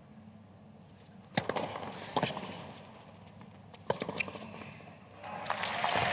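Tennis ball struck by rackets in a short hard-court rally: three sharp pops, a serve about a second and a half in, a return under a second later and a third shot nearly two seconds after that. Crowd applause swells up near the end.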